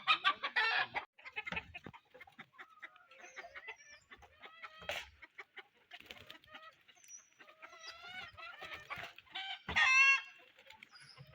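Desi (native-breed) chickens clucking, many short calls overlapping, with the loudest bursts right at the start and again about ten seconds in.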